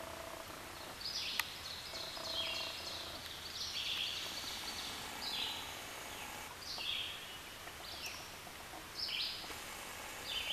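A songbird singing the same short, high phrase over and over, about every second and a half, over a faint steady hiss. A single sharp click sounds about a second and a half in.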